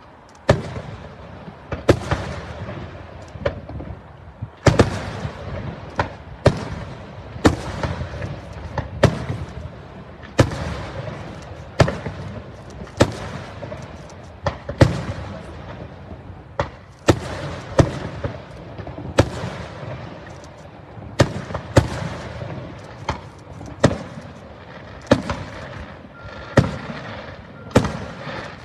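Aerial firework shells bursting in a steady barrage, a sharp bang roughly every second, each trailed by an echoing rumble.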